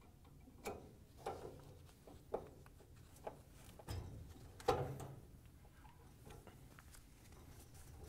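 Light clicks and taps of a Phillips screwdriver and small screws against the metal mounting bracket of a dryer gas burner valve as the screws are fitted and driven in: about six short sharp clicks, the loudest about halfway through.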